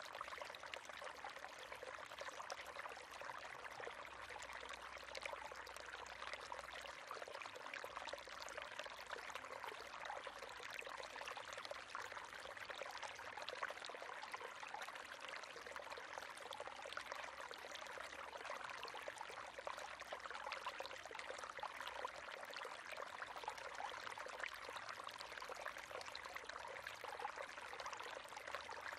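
River water running over stones: a steady rushing and bubbling.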